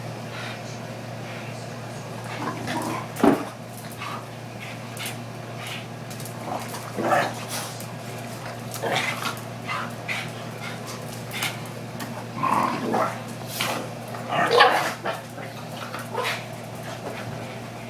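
Two young dogs, a pug/beagle mix and a pitbull/ridgeback puppy, play-fighting: scattered short barks and yips in irregular bursts, the loudest about three seconds in and again near the end. A steady low hum runs underneath.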